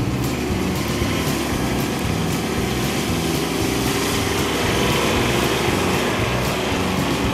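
Kubota B2601 compact tractor's three-cylinder diesel engine running steadily under load as the tractor backs away with a full loader bucket of mulch and drives off.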